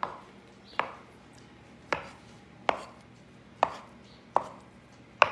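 Chef's knife slicing peeled overripe bananas into chunks, the blade knocking down onto a plastic cutting board about seven times, roughly once a second.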